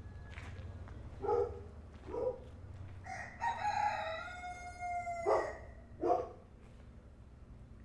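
Rooster crowing: one long, slightly falling cock-a-doodle-doo of about two and a half seconds, with a few short calls before and after it.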